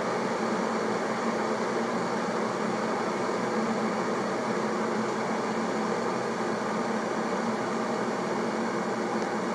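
Blaupunkt EKG501BK glass electric kettle heating water: a steady rushing noise at an even level.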